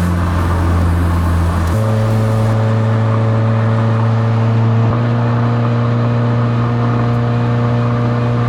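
Subaru WRX's turbocharged flat-four engine droning steadily with road noise while cruising at highway speed, heard from the car. The hum steps up in pitch twice, about two and five seconds in.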